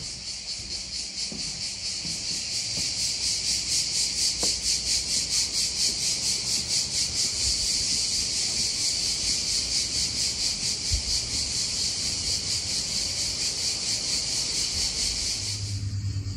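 Cicadas singing in chorus: a shrill, pulsing buzz at about three to four pulses a second, which cuts off suddenly near the end.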